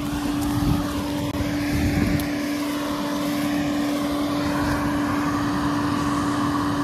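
Hagie self-propelled crop sprayer's engine idling steadily, heard from outside the machine: a constant drone with one steady hum running through it.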